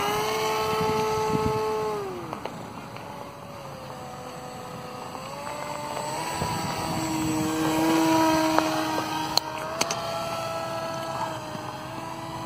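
Electric motor and propeller of an RC model microlight trike in flight, a steady whine that drops in pitch and fades about two seconds in, then climbs again and is loudest past the middle, with small shifts in pitch as the throttle changes.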